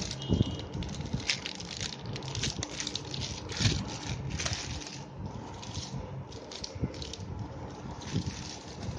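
Clear plastic packaging bag crinkling and rustling as it is handled, in irregular crackles.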